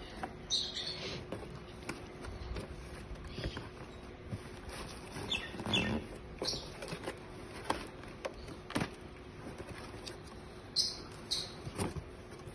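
Plastic strapping being pulled loose and a cardboard carton's flaps opened by hand: scattered rustles, scrapes and knocks, with birds chirping in the background.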